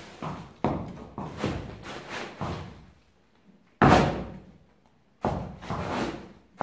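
A horse's front hoof stamping down on a bag on a brick floor, making a run of sudden bangs and thuds that echo in the hall. The loudest bang comes about four seconds in, after a short quiet gap.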